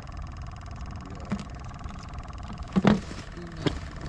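A steady low rumble with a few sharp clicks and knocks as a pliers multi-tool is handled and set down on a plastic bucket lid. The loudest knock comes about three seconds in.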